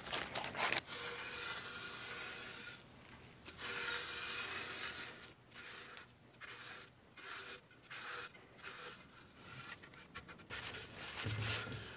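Gloved hand scrubbing a gritty salt, flour and vinegar paste over a copper fire extinguisher shell, a soft rubbing in uneven strokes with short pauses. The salt acts as an abrasive, loosening the green tarnish from the copper.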